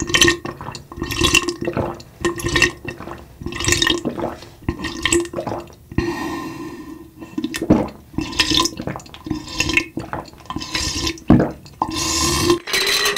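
Repeated close-up gulping as a drink is swallowed in long draughts from a glass mug, a gulp about every second, with liquid moving in the glass.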